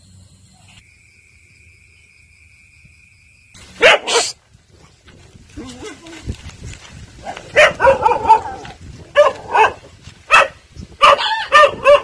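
Dogs barking and yipping in short, loud bursts, repeated several times from about four seconds in. Before that it is quiet apart from a faint steady high tone.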